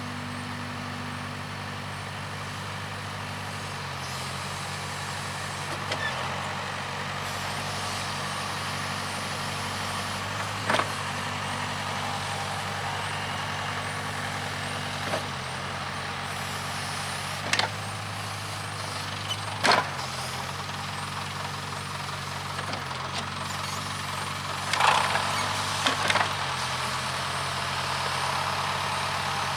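Case 580K backhoe's diesel engine running steadily under working load, its pitch shifting slightly at times, with several sharp knocks from the working bucket and arm spread through, the loudest cluster near the end.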